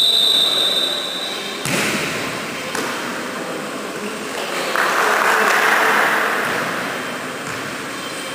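A referee's whistle blast cuts off just at the start. A volleyball is struck with a sharp smack a couple of seconds in and hit again about a second later, echoing in a large gym hall. Around the middle comes a swell of players' voices.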